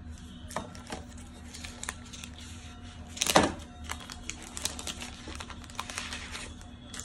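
Cardboard phone box and plastic wrapping handled by hand: light crinkling of plastic film and small clicks of the box parts, with one louder scraping rustle about three seconds in as the phone is drawn out of its tray.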